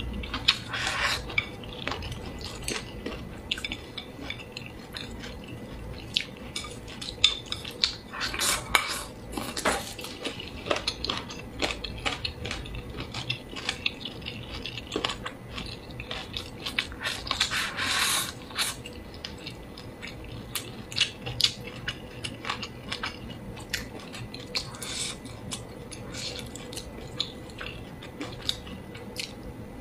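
Close-up eating sounds: wooden chopsticks clicking against a bowl of saucy braised squid, with chewing and several longer wet sucking slurps, about a second in, around nine seconds and around eighteen seconds.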